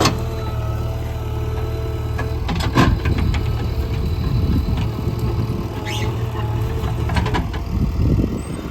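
Diesel engine of a JCB 3DX backhoe loader running steadily under work, with a few metallic clanks. The loudest clank comes about three seconds in, with others near six and seven seconds.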